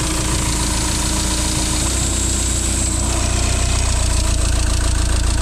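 Audi A4 B8's 2.0 TDI four-cylinder diesel engine idling steadily just after a cold start, heard close up from the open engine bay. The buyer judges it to be in order.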